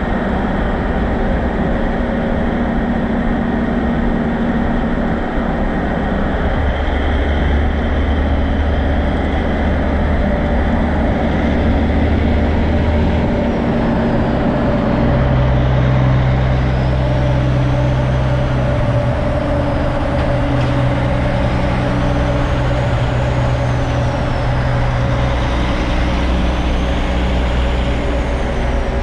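Heavy trucks' engines running loudly as they pass, the low engine note shifting in pitch several times along the way.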